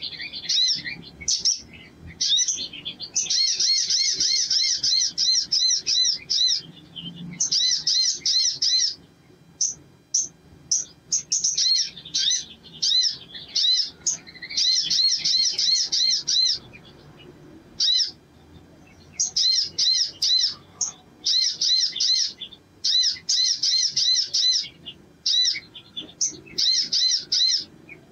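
Male olive-backed sunbird singing: rapid runs of high, quickly repeated chirping notes, each run one to three seconds long, separated by short pauses and recurring through the whole stretch.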